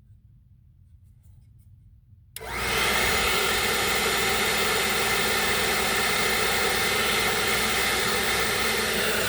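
Berta ionic hair dryer switched on about two seconds in, then running steadily on its hot setting: a loud rush of air with a steady motor whine.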